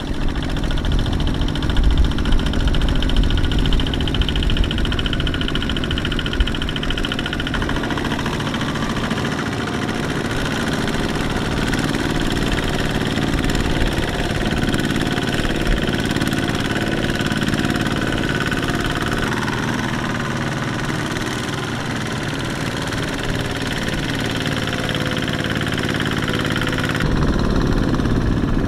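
Kubota single-cylinder diesel engines of two-wheel walking tractors running steadily as they pull loaded trailers through mud. The engine sound changes abruptly a few times as the shot cuts from one tractor to another.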